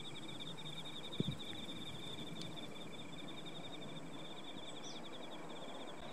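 Insects in the grass of a flower meadow chirping in fast, even pulses at two high pitches without a break. There is a soft low thump about a second in and a brief high chirp near the end.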